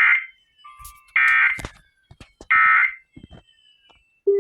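EAS/SAME digital data bursts: three identical harsh, buzzy bursts about half a second long, sent roughly a second and a quarter apart, with faint clicks between them. These are the end-of-message code closing a NOAA Weather Radio flash flood warning.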